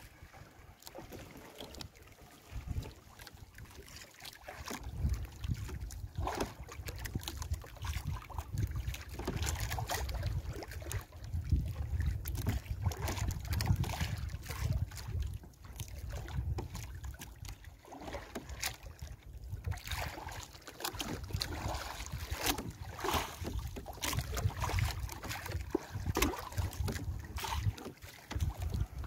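Fishing net being hauled by hand over the side of a small outrigger canoe: irregular rustles, drips and small splashes over a low, uneven rumble of wind on the microphone.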